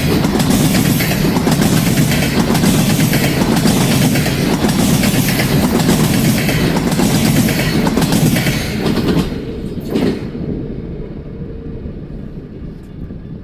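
Freight train cars rolling past, the wheels clicking over rail joints in a steady rhythm. About nine seconds in the sound drops away sharply, leaving a fainter rumble.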